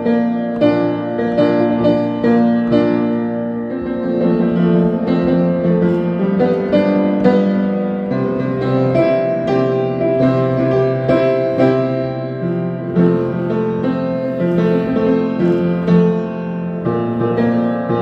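Instrumental break of a rock song: keyboard with a piano sound playing chords and melody in a steady rhythm over a bass line, with no singing.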